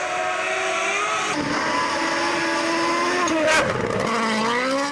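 Racing car engine revving high, climbing in pitch in a couple of pulls, with a brief rush of noise about three and a half seconds in, then cutting off suddenly.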